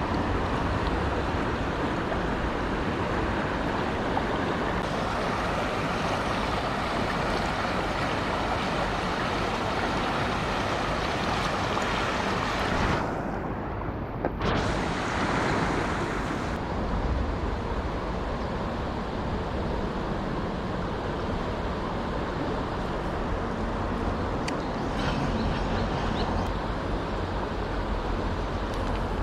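Mountain stream rushing over rocks: a steady noise of flowing water that sounds briefly dulled about halfway through.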